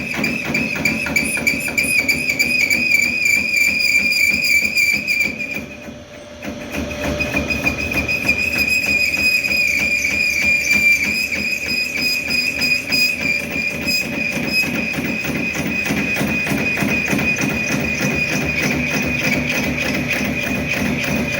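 A lathe is boring out a hardened excavator-breaker bush. The cut gives a steady high-pitched whine over fast, even chatter. It drops away briefly about six seconds in, then the cut goes on.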